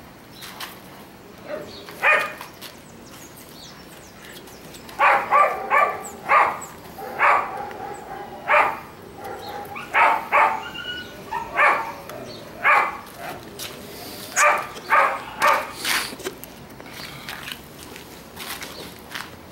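Young Doberman puppy giving short, high play barks, about fifteen of them in quick runs from about two seconds in until near the end.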